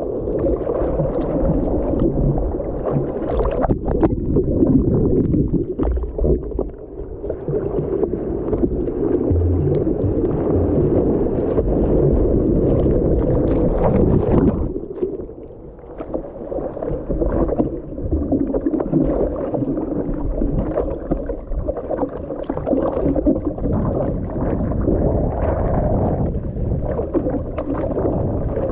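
Surf whitewater churning and splashing close over a surfboard-mounted action camera, a steady rushing wash that drops away for a moment about halfway through.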